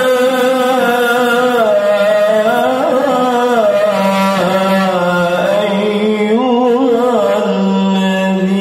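Male qari reciting the Quran in the melodic tilawah style: one long unbroken phrase of ornamented turns that rise and fall. It settles on a long-held low note near the end.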